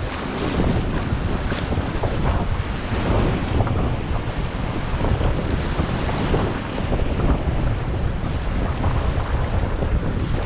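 Whitewater rushing and splashing around a kayak running a low-water rapid, with wind buffeting the microphone.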